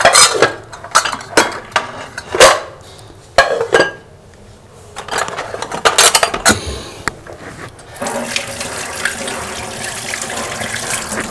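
Scattered clinks and knocks of a spoon against dishes, then a steady hiss of running water for the last few seconds.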